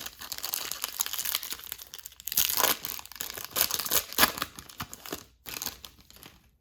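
Foil trading-card pack wrapper being torn open and crinkled by hand, a dense crackling with a few louder rips, stopping shortly before the end.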